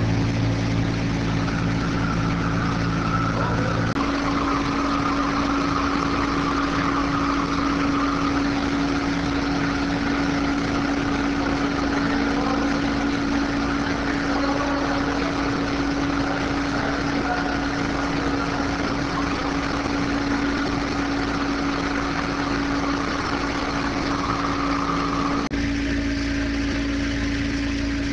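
Bulk bag unloader machinery running: a steady mechanical hum with a held tone. The sound changes abruptly about four seconds in and again near the end.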